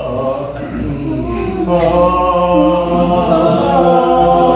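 Men's barbershop chorus singing a cappella in four-part harmony, holding a sustained chord that swells in about a second and a half in, with one part moving to a new note partway through.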